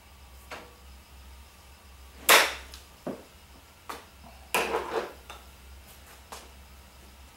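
A golf club striking a ball off a hitting mat with one sharp, loud crack about two seconds in. Lighter knocks follow, then a short scraping rattle and a few faint ticks.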